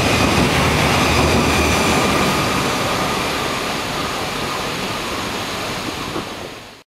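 Passenger coaches of a locomotive-hauled intercity train rolling past on the platform track. The rumble of wheels on rail, with a faint ringing from the rails, fades gradually as the train draws away, then cuts off abruptly near the end.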